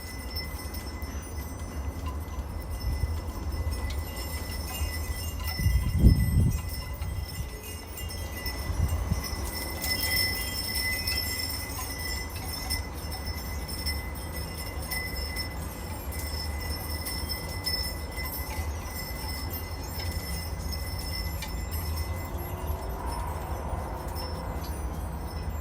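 Wind chimes ringing in a breeze, with a low wind rumble that swells in a gust about six seconds in.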